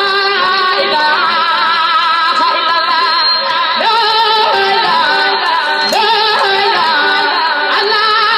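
Music with a singing voice holding long, wavering notes. A new sung phrase begins about four seconds in, and another about six seconds in.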